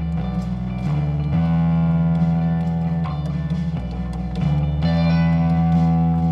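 Live rock band playing an instrumental passage, electric guitar to the fore over bass and drums, the chords changing every second or so.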